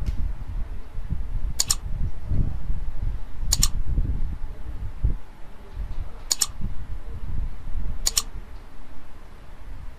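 Four sharp computer clicks about two seconds apart, paging back through lecture slides, over a low steady rumble on the microphone.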